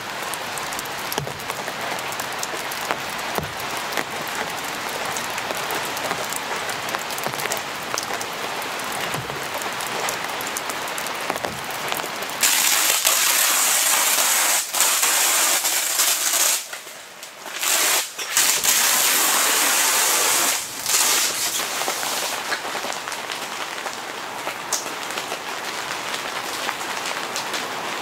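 Rain falling steadily on an inflatable air tent's fabric and clear vinyl windows. It is a dense pattering hiss that grows louder and brighter about twelve seconds in, dips briefly a few times, and settles back near the end.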